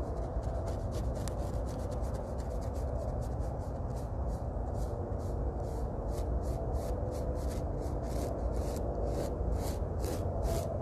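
Paintbrush scrubbing on stretched canvas in quick short strokes, about three a second, growing stronger in the second half, over a steady low rumble.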